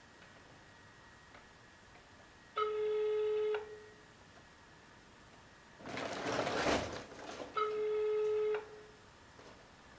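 Telephone ringback tone on a German line: two one-second beeps five seconds apart, the call ringing at the other end before it is picked up. Between the beeps comes a short loud rustle, with the plastic bag being handled.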